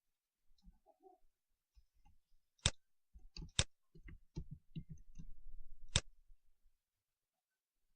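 Clicks from working a computer's mouse and keyboard: scattered soft clicks, with three sharper clicks standing out, the last of them about six seconds in.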